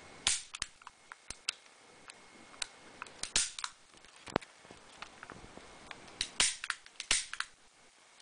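Sharp mechanical clicks from a Taurus PT99 CO2 airsoft pistol as its trigger and controls are worked, about a dozen clicks with a few louder ones about a third of a second in, around three seconds in and near six and seven seconds in. The pistol is not firing: the slide has not been pulled back to chamber a BB.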